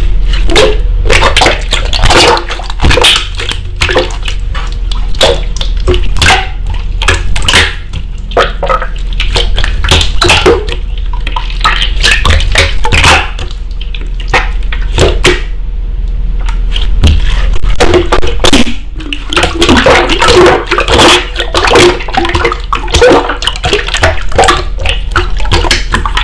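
Slime being squeezed and pressed by hand, making dense rapid crackles and clicks.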